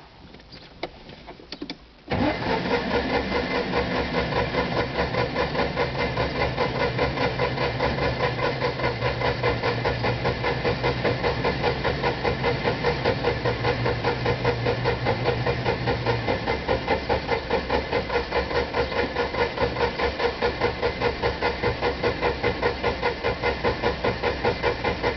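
Citroën 2CV6's air-cooled flat-twin engine being cranked on the starter, turning over in an even, rhythmic chug without catching: the car won't start. A few faint clicks come before the cranking begins about two seconds in.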